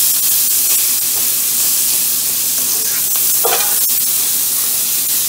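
Steak frying in a hot pan with butter: a loud, steady sizzle, with one sharp click about four seconds in.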